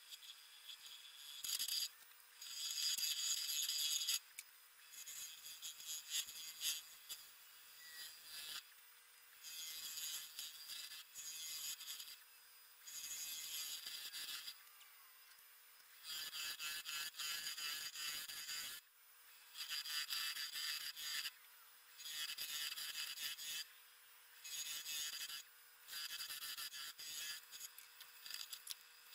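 Turning tool cutting the outside of a spinning willow bowl blank on a wood lathe: repeated cuts of one to three seconds each of shaving noise, with short pauses as the tool is reset. A faint steady tone from the running Omega Stubby lathe lies under it.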